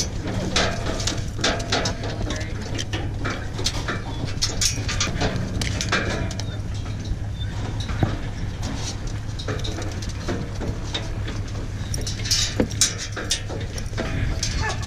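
Short clicks and rattles of collar buckles and the metal bars of a dog box as electronic tracking collars are unbuckled from hunting dogs packed inside, over a steady low hum.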